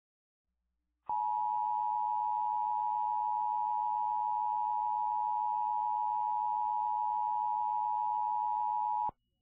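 Emergency Alert System attention signal: a steady two-note alert tone that starts about a second in, holds for about eight seconds and cuts off suddenly, announcing that an emergency message follows.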